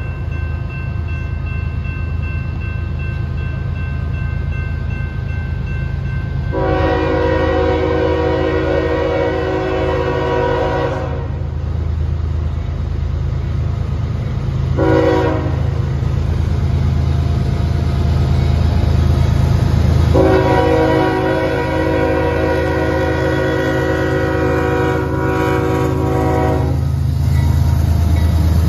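CSX freight locomotive's multi-tone air horn sounding the grade-crossing signal: a long blast, a short blast, then a long blast. Under it runs the steady low rumble of the diesel locomotives, growing louder as they reach the crossing near the end.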